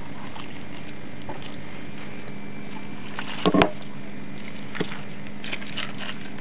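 Liquid being poured over cucumber spears in a plastic bowl, a steady trickle and splash. A single sharp knock comes about halfway through.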